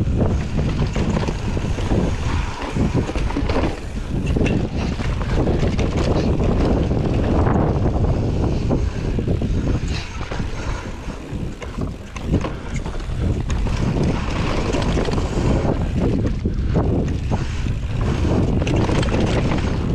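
Wind rushing over the microphone of a mountain bike descending a dirt singletrack, with tyres rolling on dirt and the steel Orange P7 hardtail rattling and knocking over roots and bumps.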